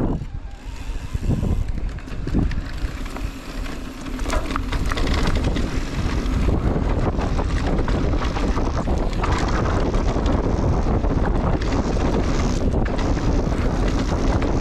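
Wind rumbling on the camera microphone, mixed with knocking and rattling from a mountain bike riding a dirt trail. It grows louder and steadier about four seconds in as the bike picks up speed.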